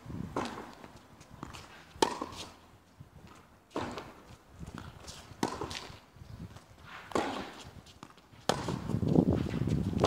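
Tennis rally on a hard court: the ball struck by rackets and bouncing every couple of seconds, some hits sharp and close, others fainter from the far end of the court. About eight and a half seconds in, a loud, rough noise with a deep low end starts and keeps going.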